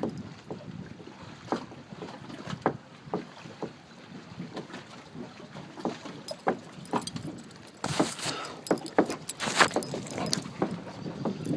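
Gusty wind stirring loose objects that knock and clatter irregularly, with a stronger rush of wind about eight seconds in.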